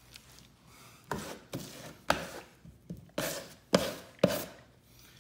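Six short, sharp strokes or taps against a surface, spaced irregularly, the last three the loudest.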